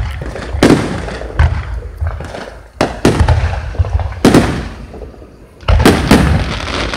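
Aerial fireworks shells bursting in quick succession, about ten sharp bangs in seven seconds, each fading off over a second or so.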